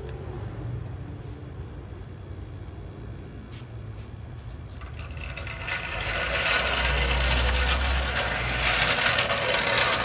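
Steel floor jack being rolled across asphalt, its casters and handle rattling and grinding, starting about halfway through.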